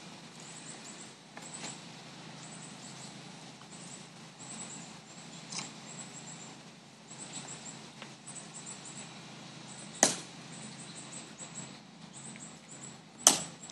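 Two sharp heel clicks about three seconds apart from a ceremonial sentinel halting and turning at his post, with fainter footstep clicks earlier. High, repeated chirping runs in the background throughout.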